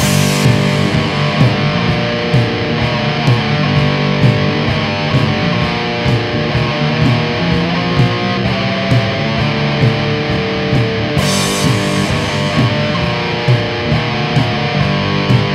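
Pagan black metal from a demo recording: distorted electric guitars playing chord riffs over drums, with a cymbal crash at the start and again about eleven seconds in.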